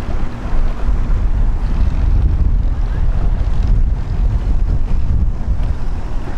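Wind buffeting the microphone outdoors by the water: a loud, steady low rumble with a hiss above it.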